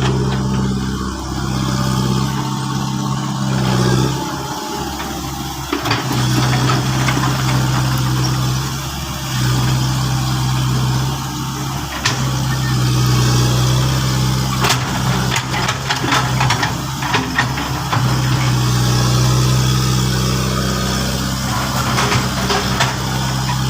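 Excavator engine running at a steady pitch, its level swelling and easing every few seconds, with scattered sharp knocks in the second half.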